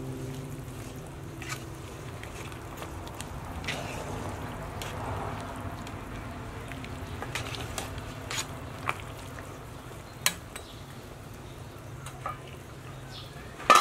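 Metal ladle stirring a pot of fish and mushroom soup, clinking against the pot's side now and then over a steady low hiss, with a louder clatter of clinks near the end.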